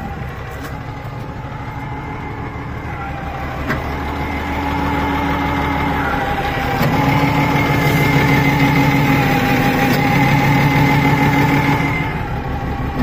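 Diesel engine of a Kalmar DCE 120-6 heavy forklift running, rising in level about four seconds in and held under load with a steady whine before dropping back about twelve seconds in.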